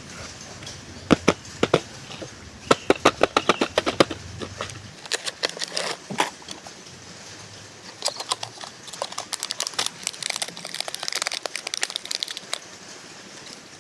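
Hands unboxing a toy: sharp clicks and taps of plastic and cardboard packaging being handled, in quick runs, with crinkling that gets denser past the middle.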